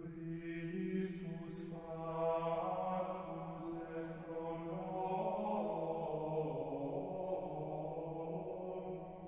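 Slow chant-like music: long held notes over a steady low drone, the pitches shifting only slowly, with a couple of brief hissing sibilants early on.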